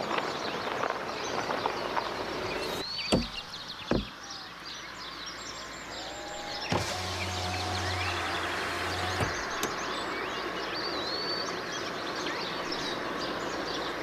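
Outdoor ambience with a steady background hiss and scattered short bird chirps, two sharp knocks about three and four seconds in, and a low steady hum from about seven to nine seconds.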